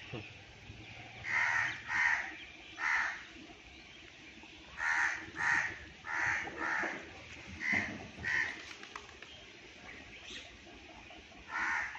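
A bird calling: about ten short, harsh calls in loose groups of two to four.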